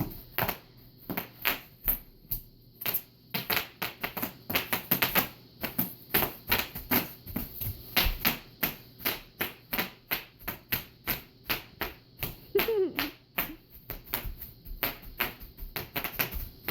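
Bubble wrap being popped by hand, a rapid irregular series of sharp pops, several a second.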